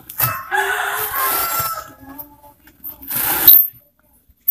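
A rooster crows once: a long pitched call of about a second and a half, starting just after the start. About three seconds in, acoustic foam wadding is dragged out through the speaker cut-out of an 8-inch subwoofer box with a short, loud rustling scrape, the loudest sound here.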